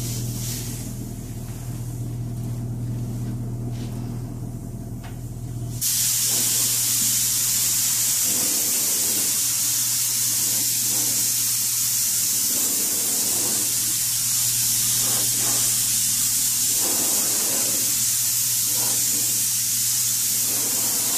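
Gravity-feed paint spray gun spraying a heavy final coat: a steady loud hiss of compressed air and atomised paint that starts suddenly about six seconds in. Before it there is a steady low hum.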